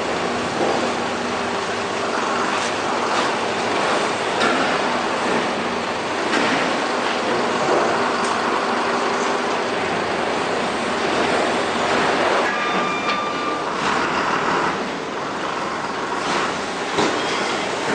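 Steady machinery noise: a dense rushing hiss over a low engine-like hum, with a few brief high tones about twelve seconds in.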